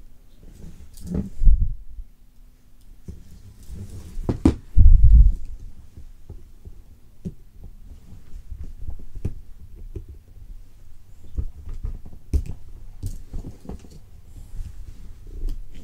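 Handling noise of Swiss Army knives being worked against each other: small metal clicks and scrapes with low knocks and thumps, the loudest about five seconds in.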